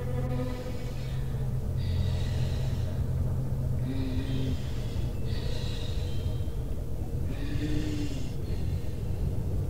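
Heavy breathing: four drawn-out, hissy breaths about two seconds apart, over a steady low drone.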